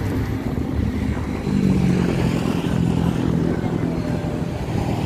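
A motor vehicle engine running, with a steady low hum that grows louder about a second and a half in.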